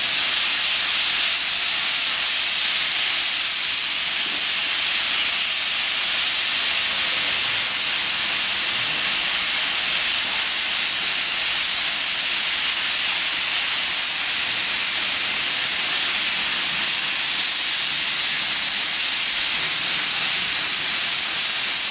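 Sandblasting nozzle blasting abrasive onto concrete: a steady, high hiss of compressed air and sand.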